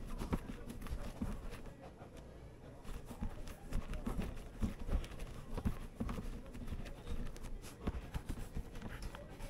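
Irregular soft thuds and rubbing of a mass of green candy being lifted, dropped, pressed and rolled by gloved hands on a silicone-matted table.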